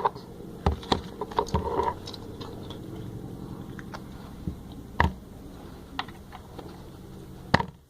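Scattered light clicks and knocks of slime supplies being handled, with the sharpest knocks about five seconds in and near the end, over a faint steady hum.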